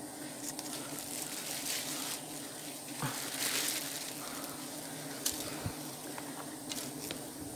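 Rustling of twigs and leaves and crinkling of a plastic bag as hands work in the branches, with a louder swell of rustling about halfway through, over a steady low hum.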